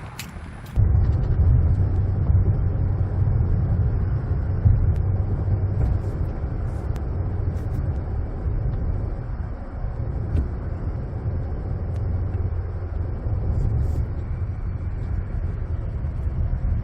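Hurricane wind with rain, the gusts buffeting the microphone in a heavy, steady low rumble. It starts abruptly under a second in.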